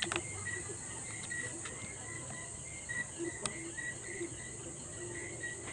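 Eating by hand from a plate of rice and fish: chewing, with sharp clicks of a spoon or fingers against the plate, loudest just at the start and again about three and a half seconds in. Behind it a steady high-pitched drone with a faint short chirp repeating about twice a second.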